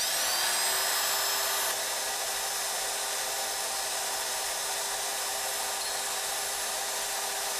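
Hougen 10950 cutter sharpening machine's grinding motor spinning up to speed and then running steadily with a high whine.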